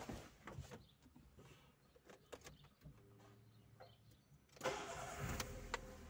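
VW Voyage's engine started: a few faint clicks, then about four and a half seconds in the starter cranks and the engine catches and keeps running.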